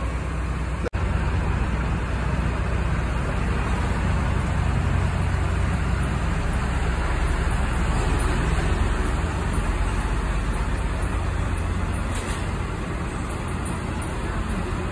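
Diesel engine of a large intercity bus running as the bus moves past close by: a steady low rumble with road and traffic noise, picking up slightly after about a second.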